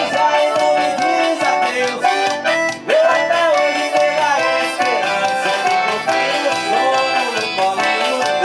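Forró music played by a band: a melody line over a quick, steady beat, with no words sung in this stretch.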